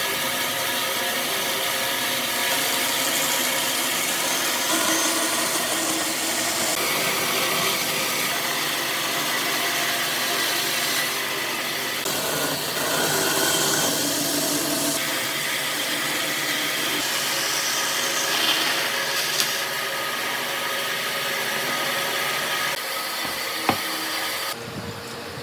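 Electric power tool running against wood, a steady whirring, grinding noise whose tone shifts every few seconds.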